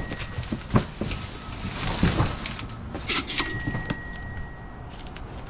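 A cash-register 'ka-ching' sound effect about three seconds in, a sudden bright chime that rings on for about a second and a half. Around it, knocks and scraping of cardboard boxes being handled.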